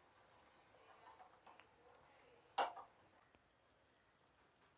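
Near silence, with faint high chirps repeating about twice a second for the first few seconds and a single sharp click about two and a half seconds in.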